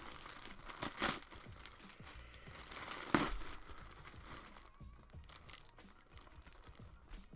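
A parcel's packaging being torn open and crinkled by hand, with sharp rips about one and three seconds in, then quieter rustling.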